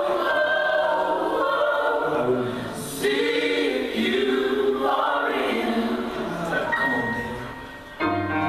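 Several voices singing a slow gospel worship song together, like a choir. The singing fades and comes back abruptly about three seconds in, and again near the end.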